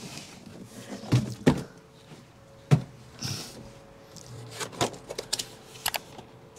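Cardboard shipping carton being opened and handled: a string of sharp knocks and thuds with a brief rustle of packaging.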